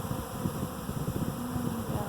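A honeybee swarm buzzing at close range, with one bee's hum passing close about one and a half seconds in.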